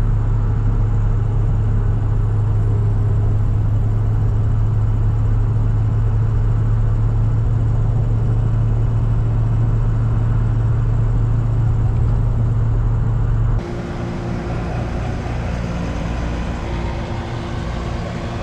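Ford 6.0 Power Stroke V8 turbo-diesel in a 2003 F350 running steadily. About fourteen seconds in the sound cuts abruptly to a quieter, different engine sound.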